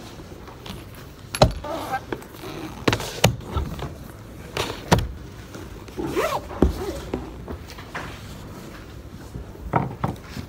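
Scattered clicks, knocks and rustling handling noises over a steady low rumble, with a short sound gliding up and down in pitch about six seconds in.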